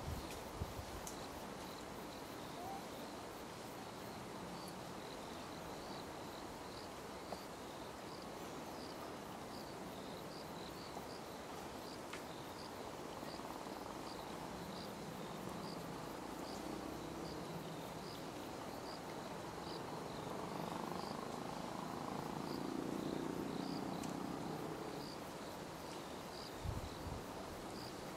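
A cricket chirping steadily in short, evenly spaced high chirps, about two a second, over soft outdoor background noise.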